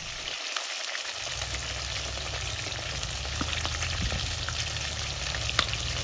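Chicken legs deep-frying in hot oil in a kazan: a steady sizzle with scattered small crackles.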